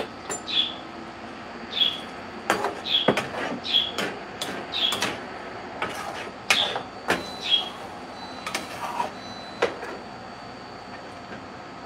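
Metal utensil clinking and knocking against cookware, in irregular sharp clicks each with a brief metallic ring, stopping about ten seconds in.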